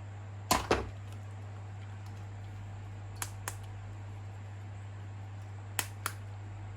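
Three pairs of short sharp clicks, each pair a fraction of a second apart, over a low steady hum.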